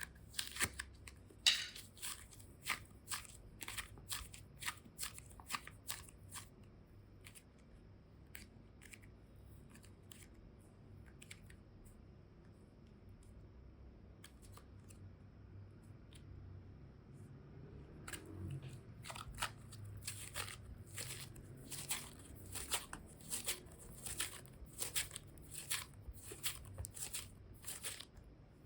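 Close-up crisp clicking and crackling as slime and clay are handled and worked, in quick runs of sharp ticks that thin out for a while in the middle and then come thick and fast again.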